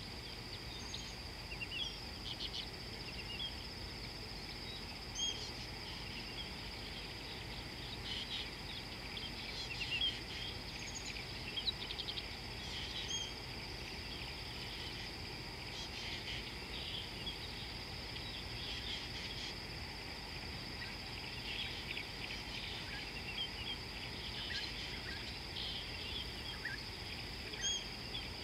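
Savanna ambience: a steady high-pitched insect drone with many short bird chirps and calls scattered over it, above a low background rumble.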